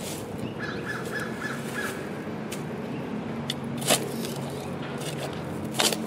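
A steel shovel blade striking and cutting into sod twice, sharp strokes about two seconds apart near the end. A bird calls a quick series of about six short notes about a second in, over a steady low hum.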